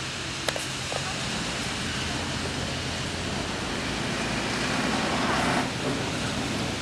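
Fire engine's heavy truck engine running steadily with a low hum as the truck moves along the field edge, growing louder from about four seconds in. A sharp click about half a second in.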